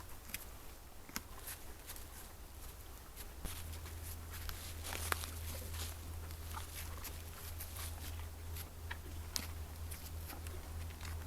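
Scattered light ticks and rustles, like an animal stepping or moving in forest litter, over a steady low hum that gets louder about three and a half seconds in.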